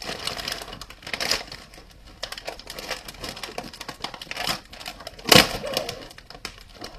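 Plastic Oreo cookie package crinkling and crackling as it is handled and opened, with one loud sharp crackle about five seconds in.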